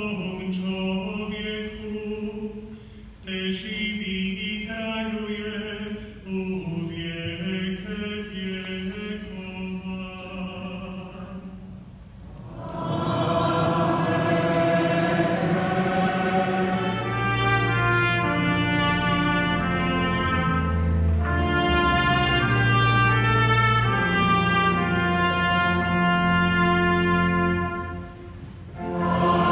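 Liturgical singing. For the first twelve seconds a man's voice chants phrases with short breaks. Then a choir and congregation come in together, singing a sustained hymn with deep bass notes underneath, dropping off for a moment near the end.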